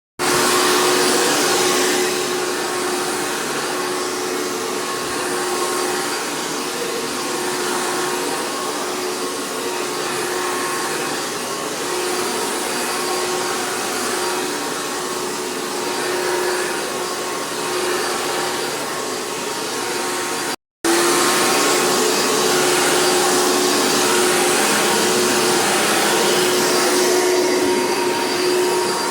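Hoover PowerMax II vacuum cleaner running: a steady motor whine over a rushing noise. It cuts out for a split second about two-thirds of the way through, then carries on.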